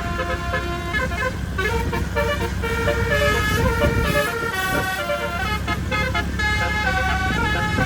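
Roof-mounted 12-trumpet telolet bus horn playing a melody of short stepping notes, over the low running of the bus's Hino RM280 diesel engine.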